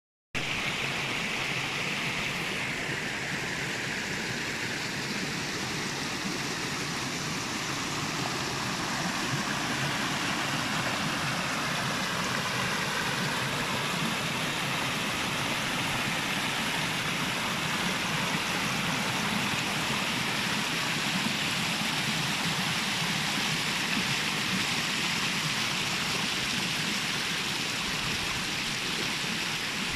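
Shallow stream running and splashing over rocks: a steady rush of water.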